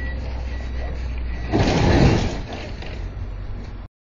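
Delivery box truck's engine running as it drives across gravel. A loud, rough burst of noise swells up about a second and a half in and dies away within a second. The sound cuts off abruptly near the end.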